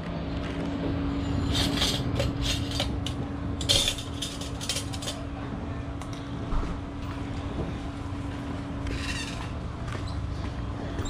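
A spoon clinking against a ceramic bowl of almond tea: a run of light clinks in the first half, over a steady low hum.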